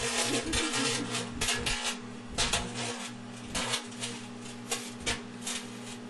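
Microwave oven running with a steady low hum while a metal object inside arcs, giving irregular crackling and snapping sparks.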